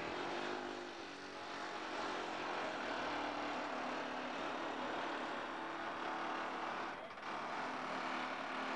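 A small engine running steadily at constant speed, with a short dip about seven seconds in.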